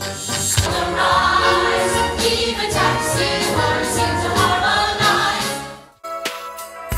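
Music with a choir singing, fading out about six seconds in. A different piece of music with steady held notes starts right after.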